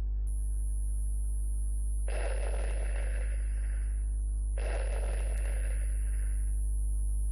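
Steady electrical hum with a thin high-pitched whine, the sound of audio playback starting. Over it come two noisy rushes of about two seconds each, one about two seconds in and one about four and a half seconds in, each fading as it goes.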